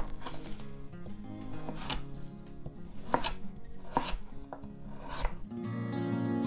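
Chef's knife chopping through slices of dense kabocha squash on a wooden cutting board: several separate cuts, about a second apart, each ending in a sharp knock of the blade on the board. Background music underneath grows louder near the end.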